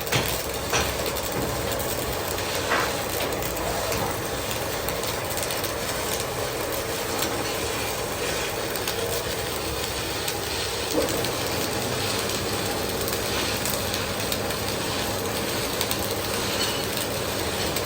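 Heavy boring machine running as it machines a steel pipe: a steady mechanical noise with a few sharp metallic knocks, one at the start, two in the first three seconds and one about eleven seconds in.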